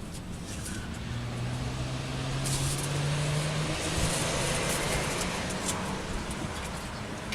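A motor vehicle driving past, its engine hum and road noise swelling about two seconds in and fading away.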